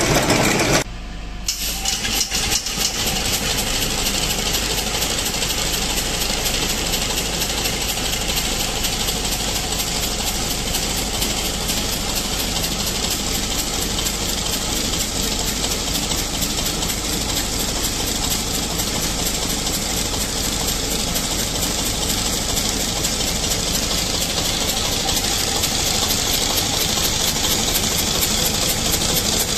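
Vintage three-cylinder Dutch stationary diesel engine with a large flywheel, running steadily with an even, fast beat. About a second in there is a brief dip where the sound cuts over from a larger multi-cylinder engine.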